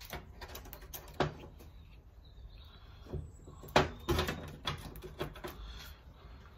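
Handling noise as a glue stick is worked over masking-taped knife handle scales on a steel workbench: scattered light clicks and knocks, the sharpest about four seconds in, over a low steady hum.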